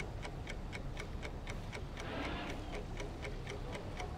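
Clock ticking sound effect: even, sharp ticks at about four a second over a steady low rumble.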